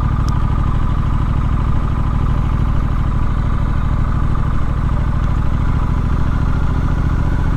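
Triumph Street Scrambler's 900 cc parallel-twin engine running at steady revs, an even low exhaust note with no rise or fall in pitch.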